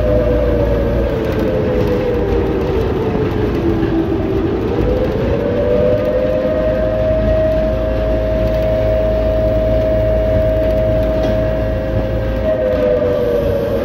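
Running noise of a moving vehicle, a steady low rumble with a drive whine on top. The whine falls in pitch as the vehicle slows about four seconds in, rises again as it picks up speed, holds steady, then starts falling again near the end.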